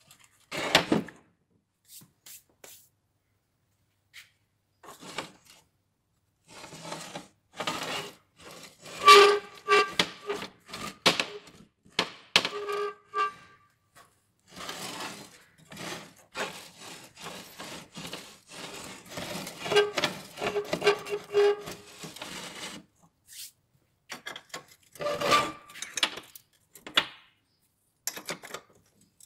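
Rusty old push reel lawn mower turned over by hand, its wheels and cutting reel rattling, scraping and knocking in irregular bursts with silent gaps. In a few places short repeated pitched squeaks come through.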